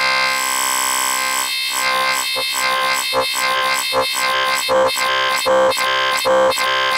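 Synthstrom Deluge playing held wavetable-synth notes: a bright, buzzy sustained tone whose timbre keeps shifting as a knob is turned. From about a second and a half in, it pulses in a steady rhythm, a little over two pulses a second.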